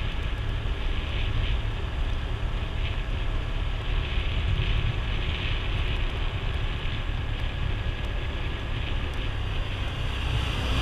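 Steady wind rumble on the microphone mixed with road and engine noise from travelling along a road.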